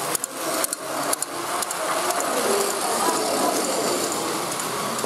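Sharp plastic clicks as a Plarail toy train is handled on its plastic track during the first second or so, then the steady whirr and clatter of battery-powered Plarail trains running on the layout.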